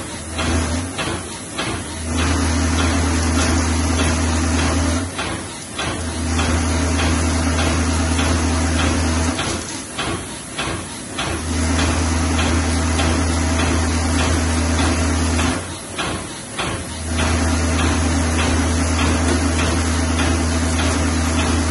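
Vibratory bowl feeder buzzing with a deep, steady hum as it shakes a bowl of plastic swabs. The hum switches off and back on every few seconds, four runs in all. In the short gaps between runs there is quick clicking and rattling of the plastic parts.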